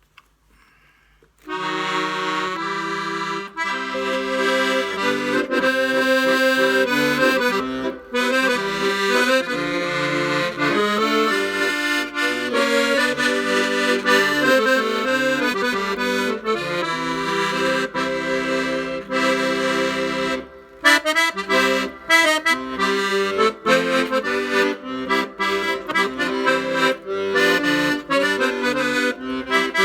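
Hohner Student 72 piano accordion played after its repair, on register 3: a tune with melody over chords that begins about a second and a half in, and turns to shorter, choppier notes in the second half.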